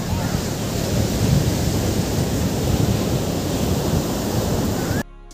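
Sea surf breaking on a sandy beach, mixed with strong wind buffeting the microphone: a steady, dense noise that cuts off suddenly near the end.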